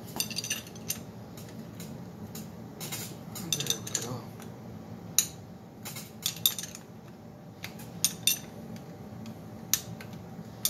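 Scattered metallic clinks and taps of a wrench and loose metal engine parts against the Cannondale 440 engine as its bolts are worked loose, irregularly spaced, some with a short ring, over a low steady hum.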